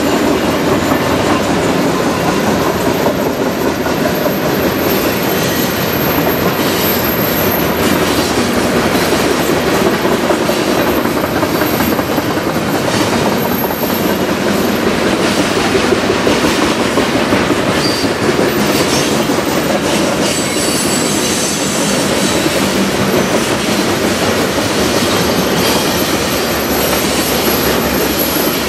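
A Canadian Pacific freight train's autoracks and covered grain hoppers roll past, with a steady rumble and clatter of steel wheels on the rails. Faint high wheel squeal comes through now and then.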